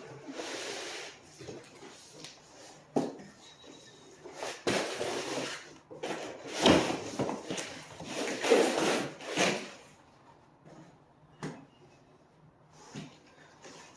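Cardboard box and packing being handled as a solar panel is slid out: scraping and rustling, with several knocks, busiest in the middle and quieter near the end.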